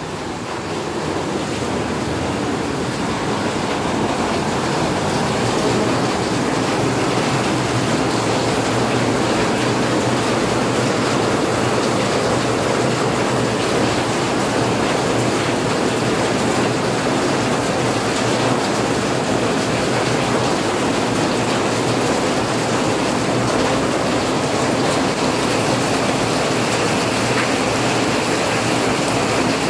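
Rain falling steadily in a dense hiss. It grows louder over the first few seconds, then holds level.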